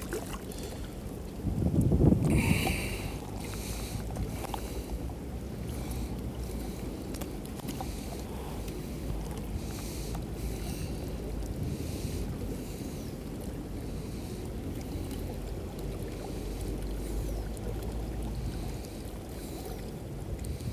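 Steady rush of a shallow creek flowing through a concrete channel, with wind buffeting the microphone. A louder burst of noise comes about two seconds in.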